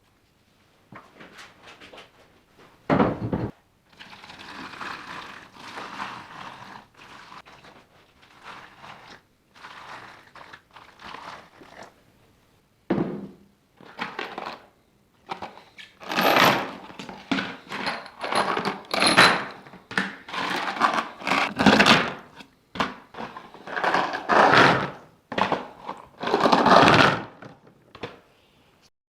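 Small metal hardware, bolts and screws, being handled: irregular knocks and clattering in short separate bursts, with one sharp hit about three seconds in and louder, busier clatter in the second half.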